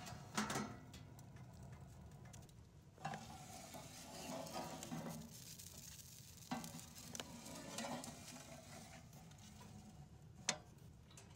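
Wood fire crackling softly inside a homemade steel camping stove, with a few sharp metal knocks as the stove's ash drawer is handled.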